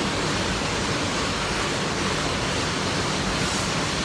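Steady, loud hiss and rumble of screw-making machines running on a factory floor, even and unbroken.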